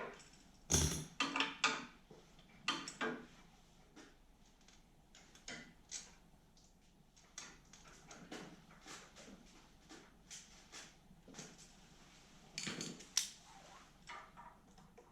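Scattered knocks, clicks and clinks of tools and small parts being handled during reassembly of a snowblower's carburetor and engine. A loud cluster of knocks comes about a second in and another near the end.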